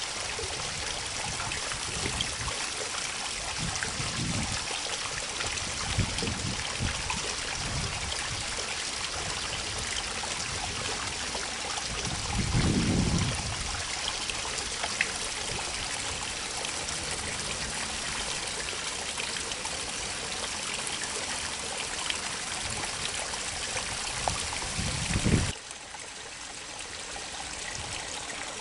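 Steady rush of water from a small channel trickling and flowing into a river, with a few short low rumbles along the way; it turns suddenly quieter near the end.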